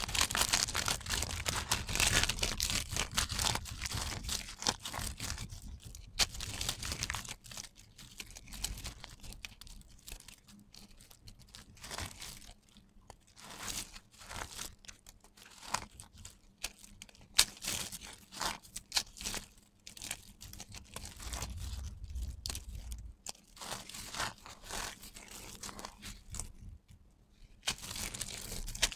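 Bars of dry soap carved into thin stripes being crushed by hand: the stripes snap off in crunchy, crackling slivers, and the loose flakes rustle as the fingers work through them, in irregular bursts with quieter stretches between.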